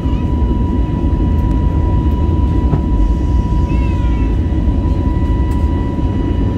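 Airbus A320neo engines at takeoff power, heard from inside the passenger cabin as a loud, steady roar with a steady whine on top.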